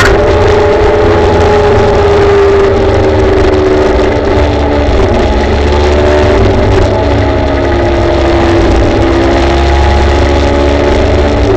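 Kaabo Wolf Warrior GT Pro electric scooter riding along a road: a motor whine that slides slowly in pitch as the speed changes, over a steady low rumble.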